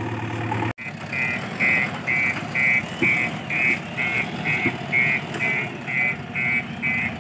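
JCB backhoe loader's diesel engine running. After a brief break about a second in, its reversing alarm beeps steadily, about two beeps a second, over the engine.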